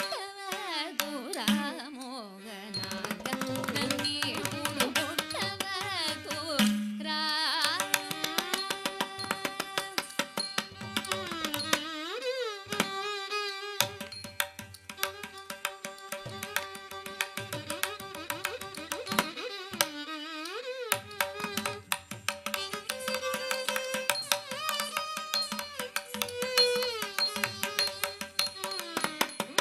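Live Carnatic music for a Bharatanatyam javali: a woman sings a slow, gliding melody with violin, over steady mridangam strokes.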